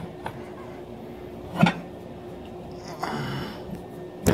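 Manual tire changer in use on an ATV wheel: sharp metal clanks of the steel tire bar against the machine and rim, a loud knock about a second and a half in and another near the end, with a brief scraping rustle between them.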